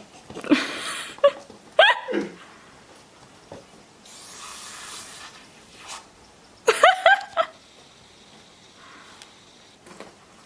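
Aerosol can of carpet foam spraying in hissing bursts, once about half a second in and again for over a second around four seconds in. Short high cries that slide in pitch come in between, twice.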